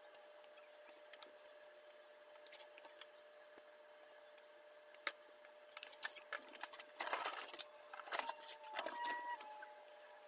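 Plastic kit parts sprues clicking and clattering as they are handled and set down, a few light clicks at first, then a burst of rattling about two-thirds of the way through.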